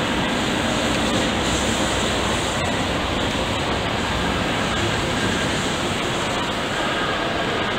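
James Watt & Co sewage pumping engine in motion, its moving machinery making a steady, even rushing noise with no distinct beat.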